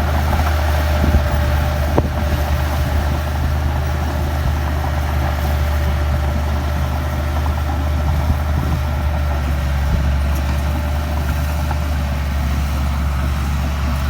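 Heavy diesel engine of the earthmoving machinery running steadily at an even pitch, with a brief knock about two seconds in.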